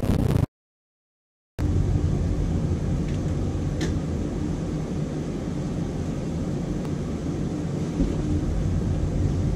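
Steady low hum and rumble of background noise, with an abrupt gap of dead silence lasting about a second near the start, where the recording drops out.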